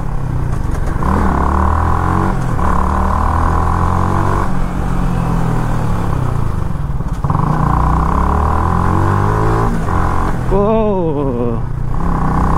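Yamaha R15 V3's single-cylinder engine pulled hard at full throttle, its note climbing and dropping back at each gear change. A brief warbling tone sounds near the end.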